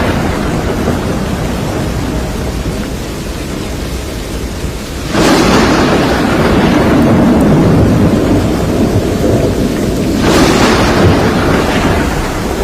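Thunderstorm: steady heavy rain with thunder, two loud claps breaking suddenly about five and ten seconds in and rumbling away over a few seconds.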